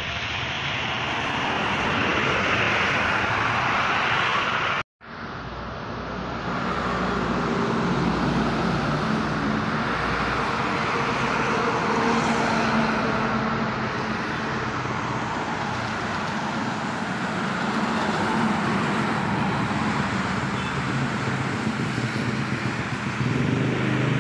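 Highway traffic passing close by: buses, a van and a small box truck going past with steady engine and tyre noise. The sound cuts out completely for a moment about five seconds in, then the traffic noise returns.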